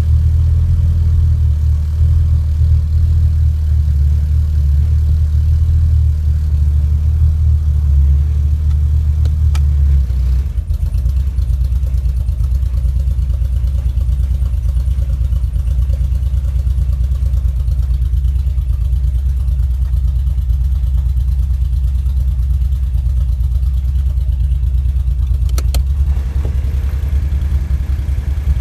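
2.3-litre turbocharged engine running at idle with a misfire, a steady low drone whose note shifts slightly about ten seconds in.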